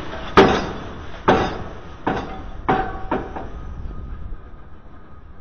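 Pile-driving rig on steel pipe piles: five heavy metallic clangs, each ringing briefly, coming a little faster each time. After them, only a fainter steady machine hum is left.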